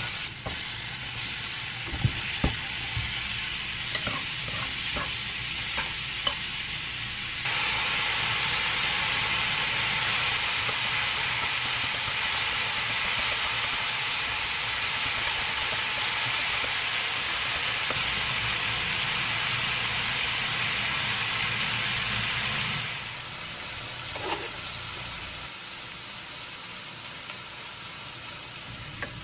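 Minced garlic sizzling in a nonstick frying pan as it is stirred with chopsticks, which click against the pan a few times. From about seven seconds in, the sizzling is louder as mushrooms stir-fry. A few seconds before the end it stops, leaving a quieter stretch with a few light knocks.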